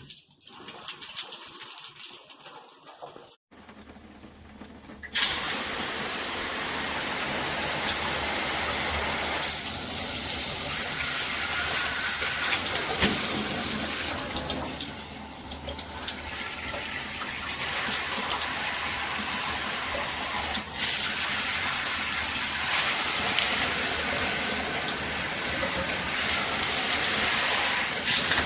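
Water spraying from a SparkPod 10-mode handheld shower head. The spray comes on loud about five seconds in after a quieter start, and its sound changes several times.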